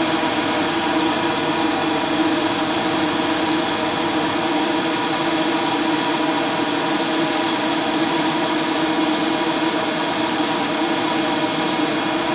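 Spray booth extraction fan running steadily with a hum, under the hiss of an airbrush spraying paint. The hiss breaks off briefly several times as the trigger is let go.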